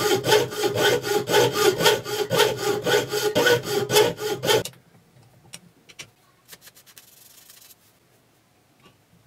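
Jeweler's saw blade cutting through the hardened steel of an old table saw blade, rasping back and forth at about three strokes a second, with the steel plate ringing faintly. The sawing stops abruptly about halfway through, leaving only a few faint clicks.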